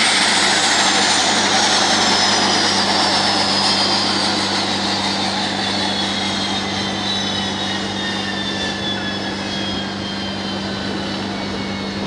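De Havilland Canada Dash 8-400 (Q400) turboprop engines winding down after shutdown: a high turbine whine falling steadily in pitch and slowly fading, over a steady low hum.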